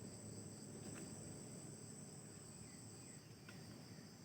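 Faint, steady, high-pitched chirring of insects, with a couple of soft ticks.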